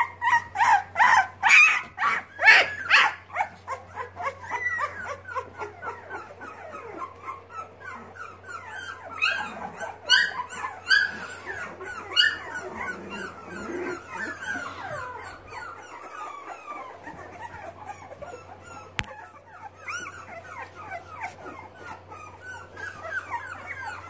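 Young Boxer puppies crying and whimpering: rapid, repeated high-pitched yelps, loudest in the first few seconds, then softer overlapping whimpers that keep going.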